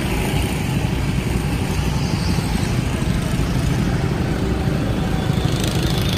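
Petrol go-kart engines running steadily as several karts lap the track, a continuous low engine drone.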